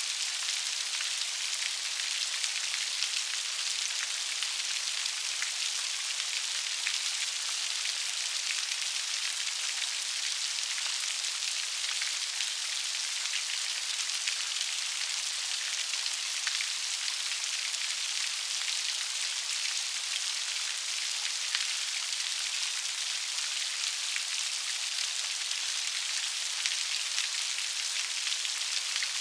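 Steady rain falling on a surface: a continuous high hiss made up of many small raindrop patters, with no change in intensity.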